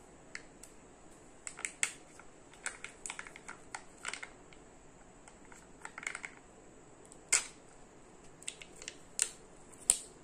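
Foil-paper seal being peeled off the plastic tray of a Kinder Joy egg: an irregular run of sharp crackles and clicks of foil and plastic, with the sharpest snaps about seven seconds in and near the end.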